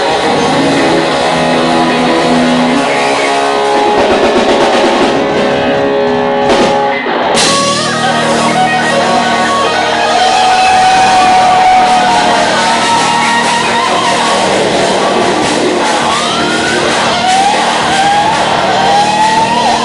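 A live rock band playing loudly, with electric guitar and drum kit. There is a brief break about seven seconds in, after which high sliding notes ride over the band.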